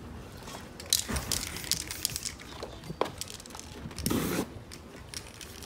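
Aerosol spray paint can hissing in a short burst over the canvas near the end, after a run of crinkling, crackling noises about a second in.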